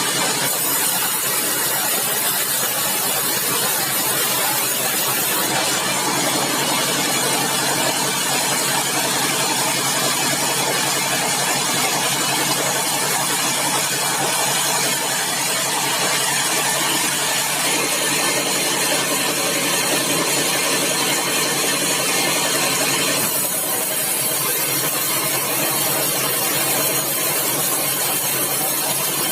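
Sawmill machinery running steadily: an engine and saw going without a break, the tone shifting a few times along the way.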